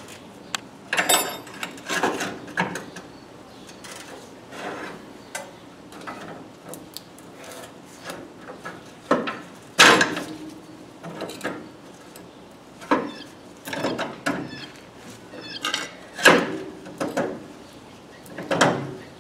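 Long steel pry bar levering a front coil spring out of its lower control arm on a 1966 Pontiac LeMans: scattered scraping and metal-on-metal knocks as the bar shifts against the spring and arm, the sharpest about ten seconds in.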